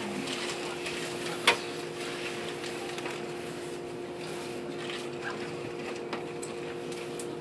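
Steady hum of a train standing at a station platform before departure, with one sharp click about one and a half seconds in and a few faint ticks.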